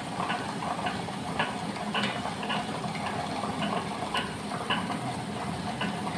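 Orient tabletop wet grinder running, its stone rollers turning in the steel drum as they grind soaked rice and urad dal into batter, with a light tick about twice a second.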